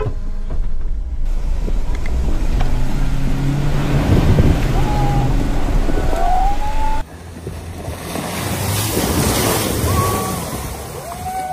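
Off-road SUV engine running steadily under load, heard from inside the cabin, with a faint short call or two. About seven seconds in, it cuts to an outside rushing noise that swells and fades as the vehicle passes.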